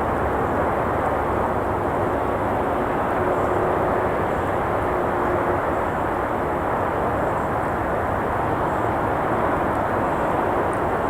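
Steady rush of traffic on a nearby road, with a few faint crackles from a campfire.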